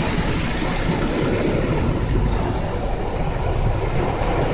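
Heavy rain and wind beating on a car, heard from inside the cabin: a loud, steady rushing with a deep rumble.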